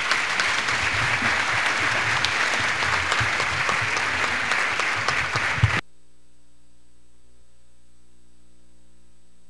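Audience applauding, a dense patter of many hands clapping, which cuts off abruptly about six seconds in. After that only a faint, steady hum remains.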